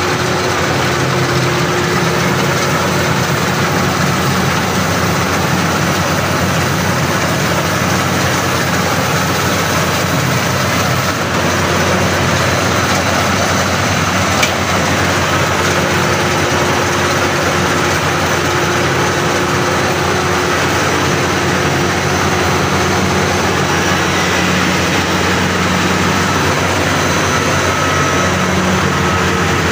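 Maxxi Bimo Xtreme combine harvester's engine and machinery running steadily while it harvests rice: a dense, even mechanical noise with a low engine drone. One brief sharp click comes about halfway through.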